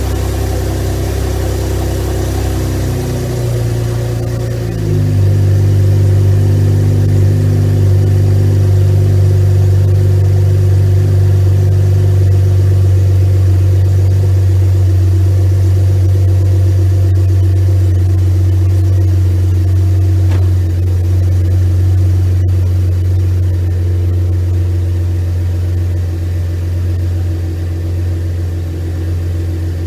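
Chevrolet Camaro's 3.6 L LFX V6 idling steadily just after its first start with a larger 80 mm throttle body, intake manifold spacer and new intake fitted. About five seconds in, the idle note steps slightly lower and gets louder, then holds steady.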